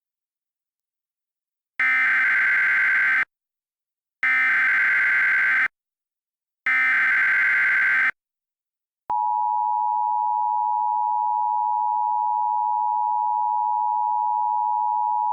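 Emergency Alert System tones: three identical bursts of warbling digital SAME header data, each about a second and a half with a second's gap between them, starting about two seconds in. About nine seconds in, the steady two-tone attention signal (853 and 960 Hz together) begins and holds at one level.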